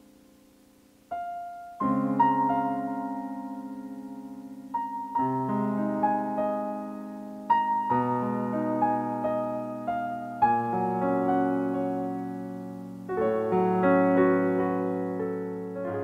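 Background piano music: slow, gentle chords and single notes that ring and fade, starting about a second in.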